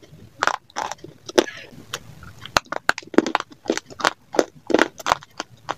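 Dry baked clay crunching and cracking: about a dozen sharp, irregular crunches in quick succession.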